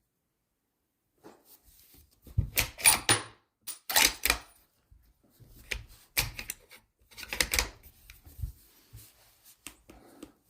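Bolt-action rifle being handled at the shooting bench: a series of short mechanical clicks and clacks in several clusters, the busiest a few seconds in.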